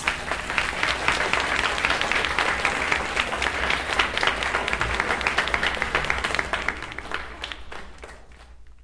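Audience applauding, played back from a vinyl LP; the clapping dies away near the end.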